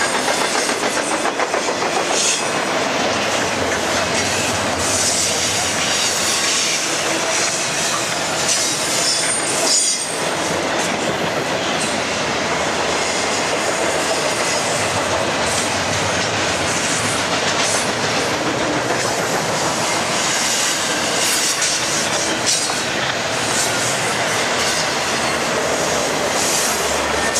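Double-stack intermodal freight train's well cars rolling past close by: a steady rumble and rattle of steel wheels on the rails, with clicks over rail joints and, now and then, a thin high wheel squeal.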